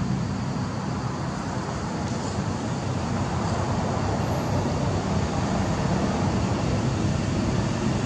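Steady low background rumble, with no distinct calls, knocks or other events.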